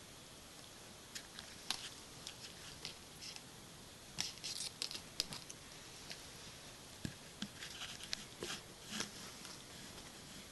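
A kitten pawing and clawing at a plastic toy stick on shag carpet: faint, irregular small clicks and scratches, with a flurry about four seconds in and more scattered ones later.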